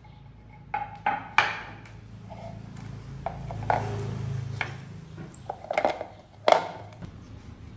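Kitchen clatter on a stone counter: a wooden cutting board carrying a plastic basket of oranges and a citrus juicer is set down with three sharp knocks about a second in. More knocks and scrapes follow as things are moved about, with the loudest knock near six and a half seconds.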